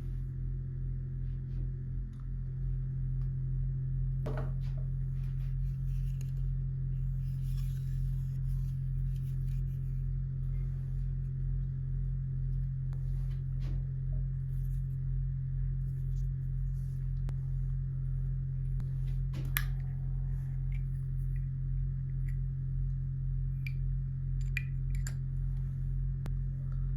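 A steady low hum, with light clicks and taps scattered over it and one sharper click about two-thirds of the way through.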